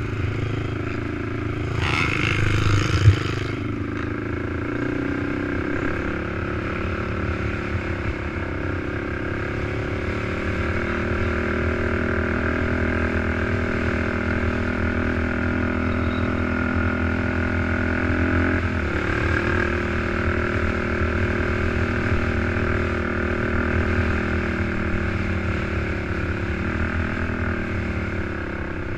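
ATV engine running under throttle on a dirt track, its pitch moving with the throttle and dropping then settling again about two-thirds of the way through. A burst of noise ending in a sharp thump comes about three seconds in.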